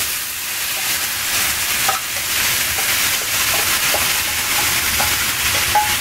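Hot tempering oil sizzling steadily in a frying pan as flattened rice (aval) is tipped in from a steel vessel, with a few light knocks.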